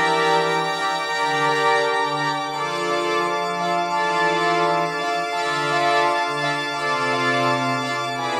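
Demo soundtrack from a software synthesizer: sustained organ-like chords over a low bass line, changing chord about every second, with no drums.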